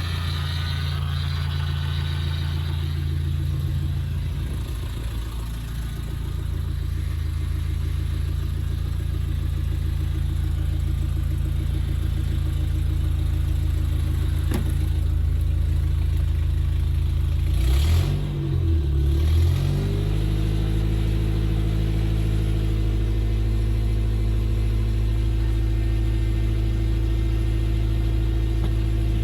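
Freshly rebuilt Toyota 22RE 2.4-litre four-cylinder engine running steadily during its first run-in. About eighteen seconds in, the engine speed dips briefly and comes back up, then it runs steady again.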